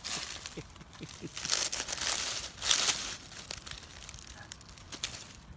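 Dry leaf litter crackling and rustling as a hand reaches into it to pick a morel mushroom. The loudest crackly stretches come about one and a half to three seconds in.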